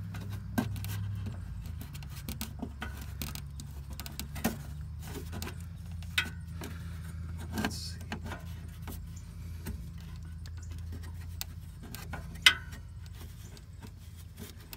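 Scattered light metallic clicks and taps as a Ford F-150's transmission dipstick tube is worked by hand into place past the exhaust and heat shield, with one sharp clack about twelve seconds in, over a steady low hum.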